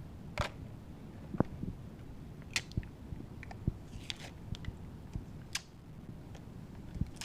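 Hands handling a small plastic drone: scattered light clicks and rustles, about half a dozen over several seconds.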